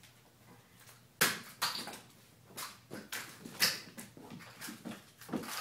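Kittens jumping and landing on a hardwood floor: a series of irregular thumps and knocks, beginning about a second in.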